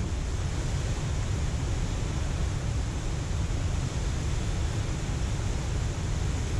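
Steady rushing of water pouring through a dam spillway, with a low wind rumble on the microphone.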